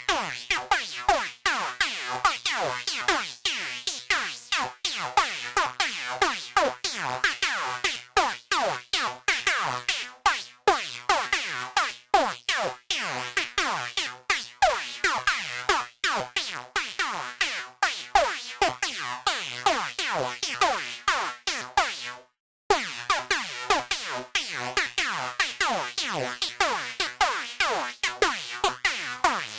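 Night full-on psytrance lead from the Vanguard software synthesizer playing a fast melody of short, clipped notes, each with a quick downward pitch drop set by the pitch envelope. It breaks off for a moment about three-quarters of the way through.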